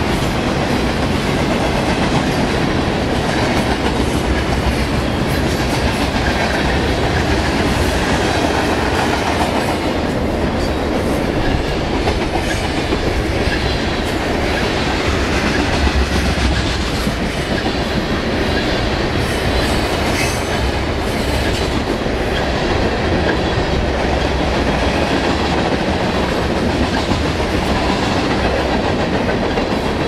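Freight train's boxcars and tank cars rolling past at close range: a loud, steady rumble of wheels on rail, with the clickety-clack of wheels passing over the rail joints.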